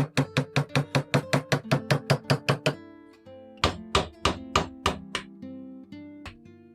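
Background music: a fast, even run of pitched chord strikes, about five a second, that gives way a little under three seconds in to a few slower strikes with held notes.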